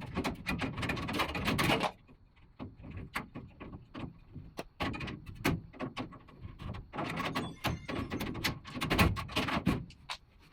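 Metal parts of a smoke purifier being handled: a rapid run of clicks and rattles for about two seconds, then scattered clicks and knocks in a few short bursts as the filter unit is worked loose.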